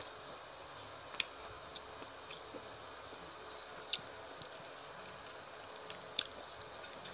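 Close-miked eating sounds of a person chewing rice and fish curry eaten by hand, with wet squishing mouth noises. Three sharp clicks stand out, about a second in, near four seconds and about six seconds, with smaller ones between, over a steady hiss.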